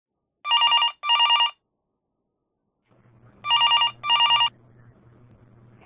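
Phone ringing with a trilling double ring, sounded twice: two short rings, a pause of about two seconds, then two more.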